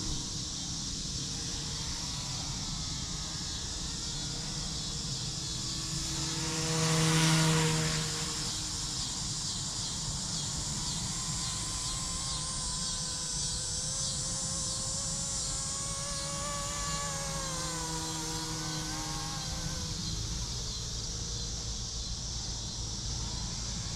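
Electric RC scale helicopter flying fast, its motor and rotor whine buzzing and sliding up and down in pitch as it manoeuvres, at pretty much full speed in high rate and GPS mode. It passes loudest about seven seconds in.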